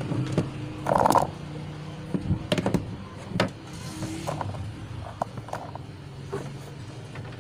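Scattered light clicks and knocks from an analog multimeter and its leads being handled and set down, over a steady low hum.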